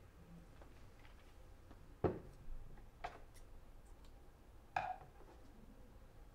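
A cone of yarn set down on a hard tabletop with a sharp knock about two seconds in, then a smaller click of handling. Just before five seconds, scissors snip the yarn with a short metallic click.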